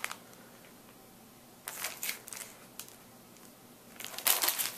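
A sealed plastic bag of soft plastic fishing baits crinkling as it is handled, in two short bouts: about two seconds in and again near the end.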